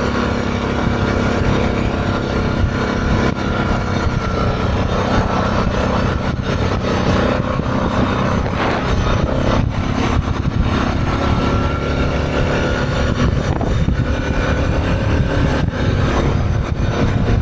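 ATV engine running steadily under way, with a constant rush of wind and road noise.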